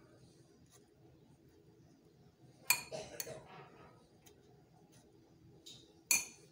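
Metal spoon clinking against a glass bowl while scooping chicken filling: two sharp clinks close together about two and a half seconds in, and a third near the end.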